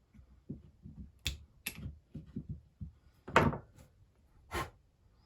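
Small parts of a Tillotson chainsaw carburettor clicking and tapping as it is taken apart by hand: a run of soft knocks with four sharper clicks, the loudest about three and a half seconds in.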